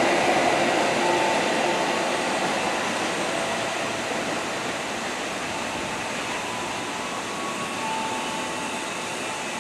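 Passenger train running away over the station tracks, its rolling noise steadily fading. Now and then a faint, thin wheel squeal sounds.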